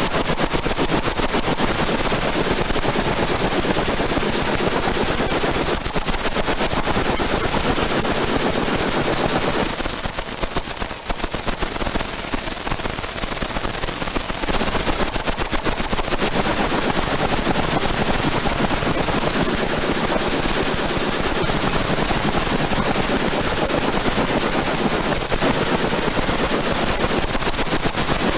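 Machine guns on a range firing line shooting in continuous, overlapping automatic fire with no pause, easing slightly about ten seconds in before picking up again.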